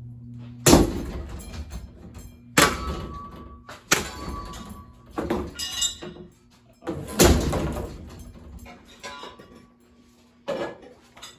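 A hugger ceiling fan being smashed: about six loud crashing impacts a second or two apart, each followed by a brief metallic ring.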